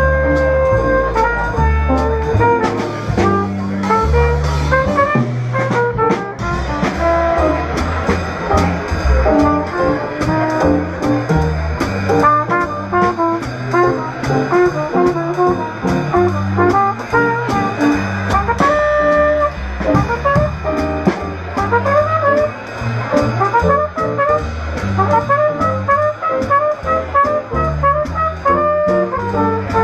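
Small jazz group playing, with a trumpet carrying a busy melodic line over piano, upright bass and drums.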